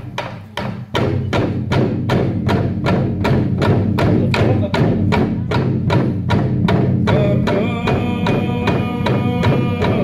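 Drums beating a steady rhythm of about three strokes a second to accompany a Torres Strait Islander dance, with a brief drop about half a second in. From about seven seconds in, singing voices join over the drumming.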